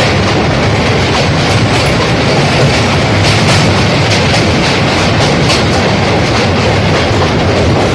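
Passenger train running on the rails: a loud, steady rumble with repeated clacks of the wheels passing over rail joints.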